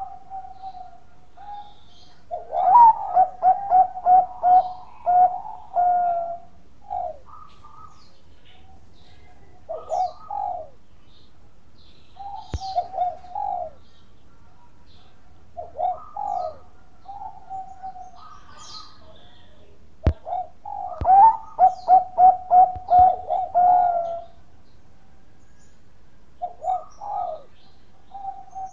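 Bangkok-type zebra dove (perkutut) cooing: two long phrases of quick, pulsing coos, one starting about two seconds in and one about twenty seconds in, with short two- or three-note coos between them.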